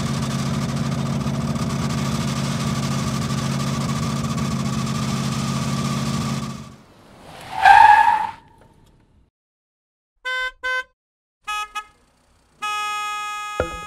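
A vehicle engine runs steadily at an even pitch, then stops. A short, loud rising sound follows, then two pairs of short horn-like beeps and a held horn-like tone near the end.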